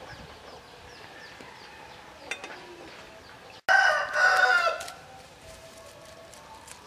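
A rooster crowing once, loudly, for about a second, starting just past the middle.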